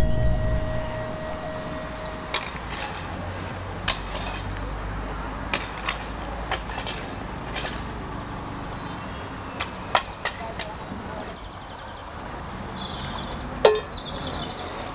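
Scattered, irregular knocks and clinks of hand tools striking at a construction site, about a dozen, the sharpest near the end, over a steady low hum with high chirping.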